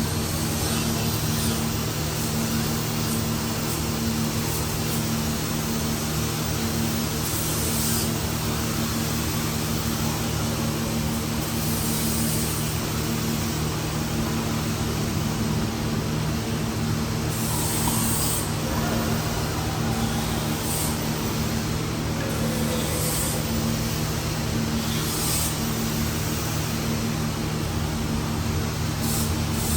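A steady motor hum with constant low tones under a hiss, unchanging in level.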